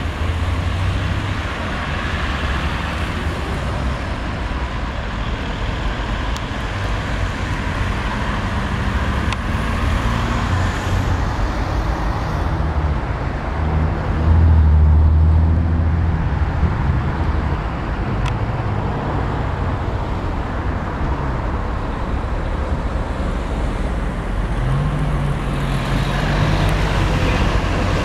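Road traffic: cars driving through an intersection, a steady hum of engines and tyres. The engine noise swells loudest about halfway through, and near the end one engine rises in pitch and then holds steady.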